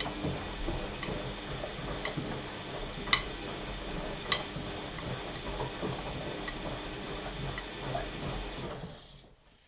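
Washing machine drum turning during the wash phase, with clothes tumbling and a sharp click about once a second. The motor winds down and the drum stops near the end, pausing before the next turn.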